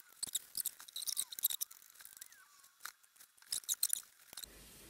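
Irregular small clicks, taps and crinkly rustling of screws and small parts being handled and sorted, with a couple of faint squeaks in the middle; the sounds stop shortly before the end.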